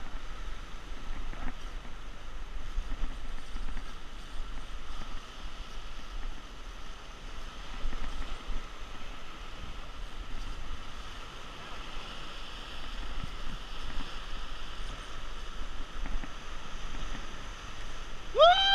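Surf washing and breaking against shore rocks, with wind buffeting the microphone as a low rumble. At the very end a brief loud tone rises and falls sharply in pitch.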